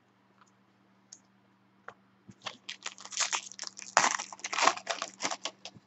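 Foil trading-card pack wrapper crinkling and tearing as it is opened by hand, in a run of crackles that starts about two seconds in and peaks shortly before the end.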